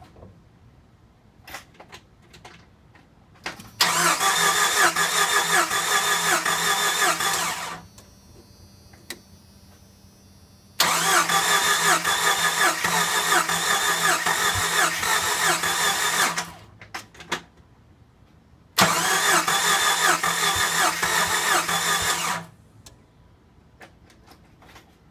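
Jeep Wrangler YJ engine cranking on the starter three times, each try several seconds long with a steady whine and an even rhythmic chug. Each time the cranking stops without the engine catching: a crank-but-no-start problem.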